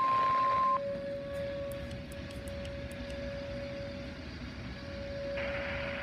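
A weather radio's 1050 Hz warning alarm tone cuts off under a second in. Under it, a Whelen WPS outdoor warning siren sounds one steady tone throughout. A hiss comes in near the end.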